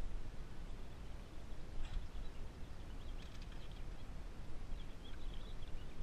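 Chain fish stringer being hauled up beside a boat: scattered metallic clinks of the chain and bass splashing and thrashing at the surface, over a steady low rumble.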